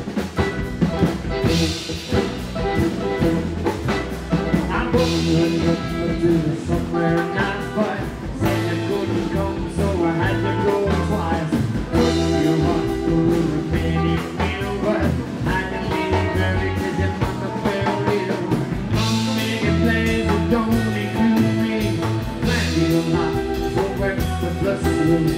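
Live rockabilly band playing an instrumental passage between sung verses: electric guitar over upright double bass, drum kit and strummed acoustic guitar, with a steady driving beat.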